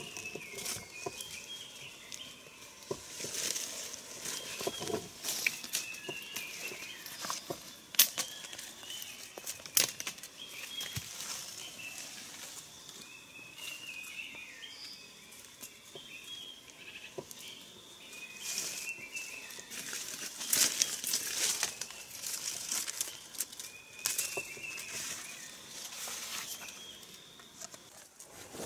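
Dry leaf litter rustling, with small twigs and sticks cracking and clicking, as a ground trap is set by hand on the forest floor. A short high chirping call repeats every second or two behind it.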